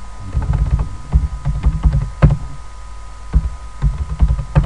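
Computer keyboard being typed on: irregular key presses and knocks, several a second, with one sharper knock about two seconds in.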